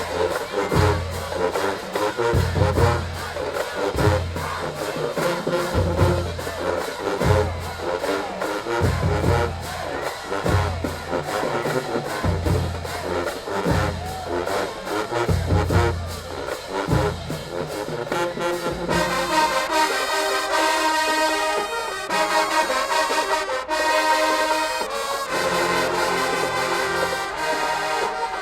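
Marching band playing: the drumline beats a driving cadence with low bass hits about every second and a half under the brass, then about nineteen seconds in the drums fall away and the horns hold loud sustained chords.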